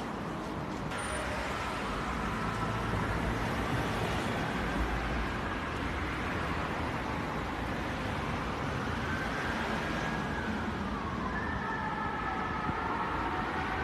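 A wailing tone gliding slowly up and down, growing plainer about nine seconds in, over a steady rumbling noise.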